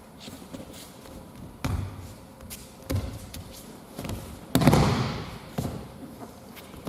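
Several dull thuds of bodies falling and feet striking tatami mats during aikido throws and breakfalls, the loudest a little past the middle.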